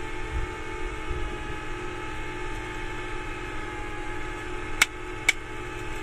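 Remote control's plastic case halves snapping shut: two sharp clicks about half a second apart near the end, over a steady electrical hum.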